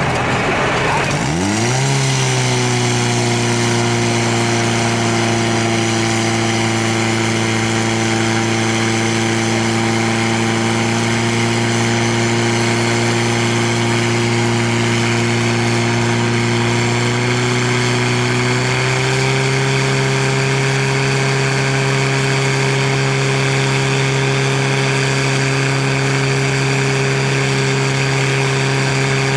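Portable fire pump engine revving up sharply about a second in, then running steadily at high revs while it pumps water through the hoses, its pitch stepping up slightly about two-thirds of the way through.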